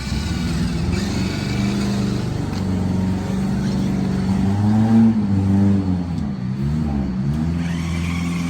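Big-wheeled off-road RC toy car's electric motor and gears whining steadily. The pitch steps up about halfway through, then dips and rises a few times as the throttle changes.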